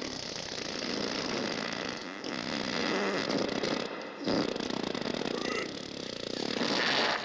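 A man groaning and straining with effort, a long rough rasping strain that breaks off briefly about four seconds in.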